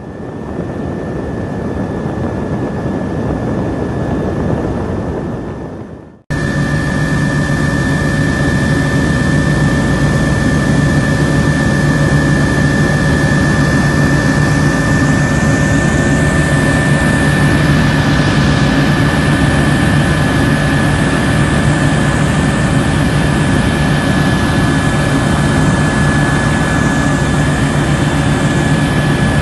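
Helicopter heard from inside the cabin: engine and rotor running steadily, a low drone under a steady high whine. The sound breaks off for a moment about six seconds in and comes back louder.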